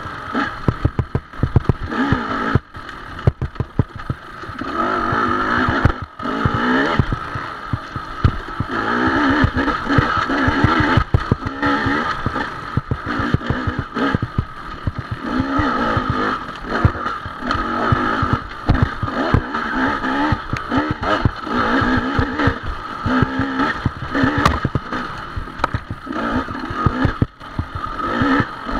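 Off-road dirt bike engine revving up and easing off over and over as the throttle is worked every second or two on a rough trail, with frequent knocks and rattles from the bike over the bumps.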